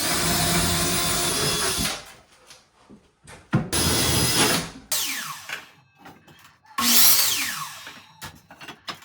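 Cordless drill pre-drilling pilot holes through a cabinet side into the wall studs, run in three short bursts. Its motor whine falls in pitch as the trigger is released.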